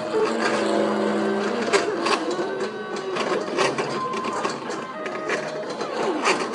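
Stepper motors of a CNC plasma table driving the torch carriage, which carries a marker pen to draw on the sheet: a steady machine whine whose pitches shift up and down as the head changes speed and direction, with a few sharp clicks.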